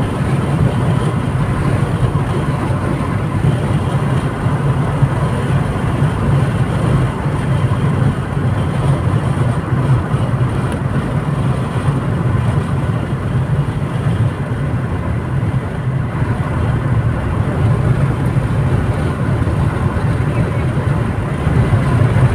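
Steady cabin noise of a car driving along a paved highway: a low drone of tyres on asphalt and engine that never breaks.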